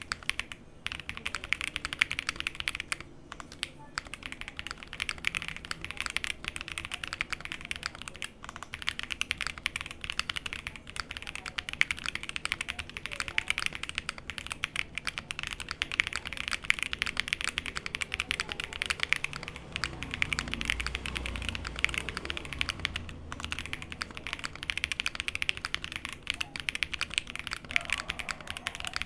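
Continuous typing on a mechanical keyboard fitted with stock Aflion Inks 55g tactile switches, an FR4 plate and GMK Posh keycaps: a dense run of keystroke clacks, with a few brief pauses.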